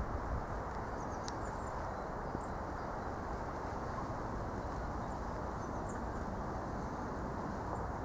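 Steady outdoor rumble with faint bird chirps now and then, and a single sharp click about a second in.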